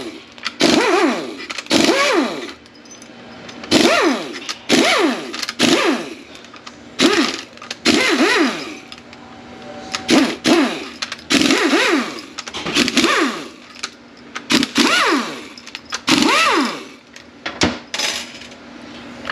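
Metal parts being pulled out of a 6T45E automatic transmission's valve body by hand, with about a dozen short ringing metallic clinks and rattles spread over the stretch.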